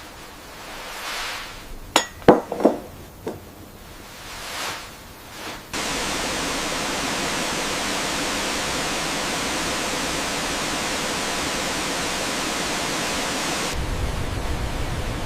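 A few sharp knocks and soft rustles, then a steady rush of falling water that cuts in abruptly and holds level.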